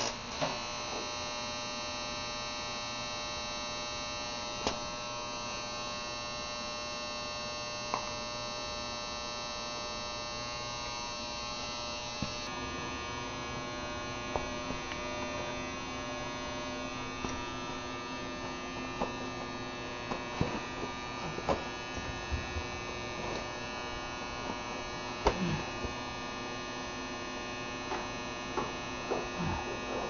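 A steady electrical hum, with scattered light clicks and knocks that come more often in the second half.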